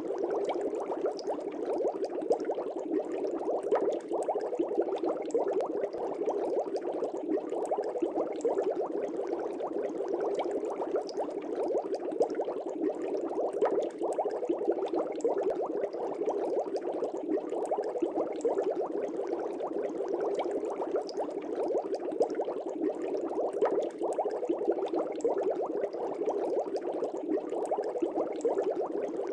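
Aquarium water bubbling steadily, a dense stream of small bubbles rising and popping at the surface.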